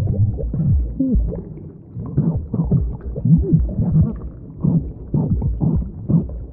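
The Cinnamon Toast Crunch meme sound played with an underwater effect: heavily muffled and low, with wobbling, bending pitch.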